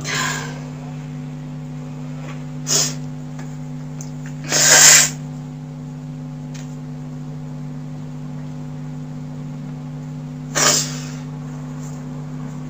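A woman sniffling: four short noisy sniffs, the loudest and longest about five seconds in, over a steady low hum.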